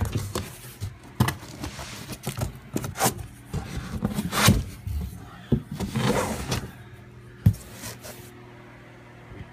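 Plastic wrapping and packing tape being handled and pulled inside a cardboard box: irregular crinkling and rustling, with a sharp knock about three-quarters of the way through. A steady fan hum runs underneath.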